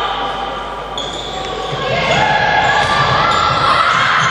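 Sounds of an indoor handball game: the ball bouncing and shoes squeaking on the court, with players calling out, echoing in a large sports hall.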